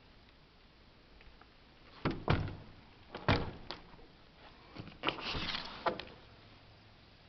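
A window frame being handled: a couple of knocks about two seconds in, sharp clicks around three seconds, then a short scraping slide about five seconds in.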